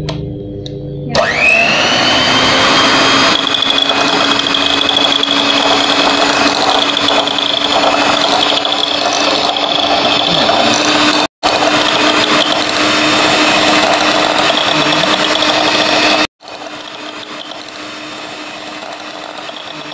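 Electric hand mixer running steadily, its beaters whipping instant coffee, powdered sugar and cold water in a glass bowl for dalgona coffee cream. The motor starts about a second in with a rising whine, cuts out briefly twice, and runs more quietly for the last few seconds.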